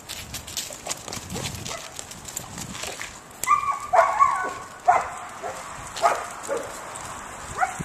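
A dog barking in a series of short, high barks that start a little before halfway.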